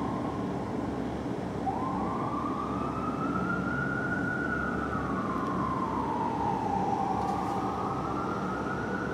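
A fire engine's siren sounding a slow wail at a distance, over a steady low rumble of city traffic. A short rise is heard at the start; from about two seconds in the tone climbs to a high note, falls slowly, and climbs again near the end.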